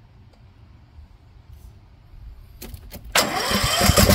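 A couple of light clicks, then about three seconds in a loud machine noise from the Cub Cadet XT1 lawn tractor starts suddenly and keeps going with a fast, even pulse.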